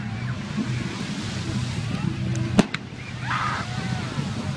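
Fireworks going off: one sharp bang a little over halfway through, followed closely by a fainter crack, over steady chatter from the watching crowd.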